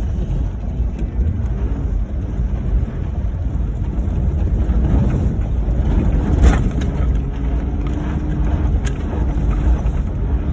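Ford Crown Victoria driving over rough dirt ground: a steady low rumble of engine and road noise, with a couple of sharp knocks or rattles about six and nine seconds in, and a steady engine hum coming up in the second half.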